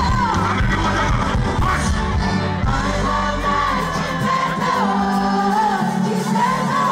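Live band music with a lead vocal and the crowd shouting and singing along; the deep bass drops out about four seconds in while the singing carries on.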